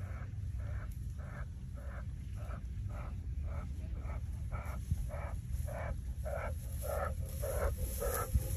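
Male lion panting in an even rhythm, about two and a half breaths a second, growing louder as it comes close. A low engine rumble runs underneath.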